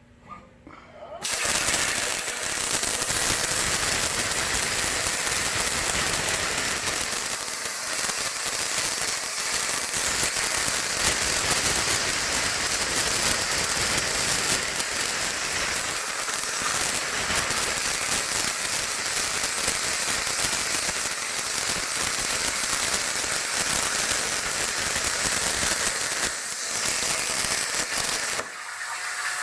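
Plasma cutter cutting 1/8-inch stainless steel: a loud, steady crackling hiss that starts about a second in and stops near the end.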